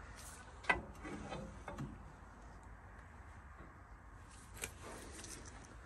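A few light knocks and clicks of metal parts being handled as the cylinder head is worked off an old truck engine: a sharper knock about a second in, a few softer ones just after, and another near the end.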